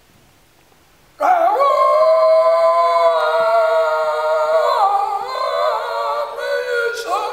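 Two men's voices in improvised wordless vocalising: after about a second of quiet, they come in together with long, high, held tones that waver and shift in pitch from about the middle on.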